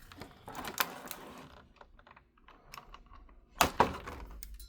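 Toy packaging being handled as the toy is freed from its strapping: scattered light clicks and crinkles, with a louder rustle about three and a half seconds in.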